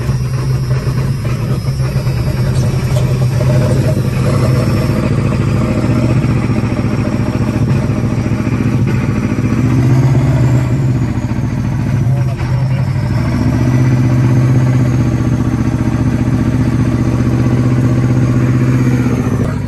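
Ford F-250's diesel engine pulling hard under heavy load as the truck moves off in gear on oversized tractor tyres, heard inside the cab. A high whine rises and falls with it, and the engine eases off briefly about two-thirds of the way through before pulling again.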